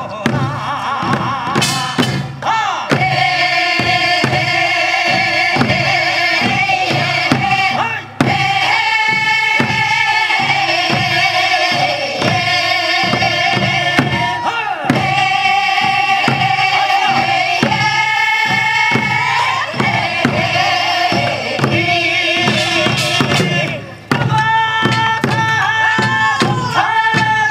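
Voices singing a Korean folk rice-paddy work song over a buk barrel drum beating a steady rhythm. The singing breaks off briefly about eight seconds in and again near the end, then picks up.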